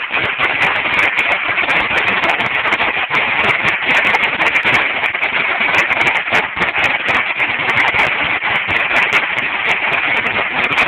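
A Dominator 16,000 firecracker strip going off: a continuous, dense rattle of small firecrackers popping in rapid succession without a break.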